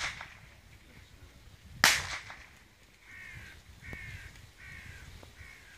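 Two blank-pistol shots about two seconds apart, the first dying away at the start and the second sharp and loud. These are typical of the gunfire-steadiness test in a dog obedience exam. Then a bird gives four harsh calls, each about half a second long.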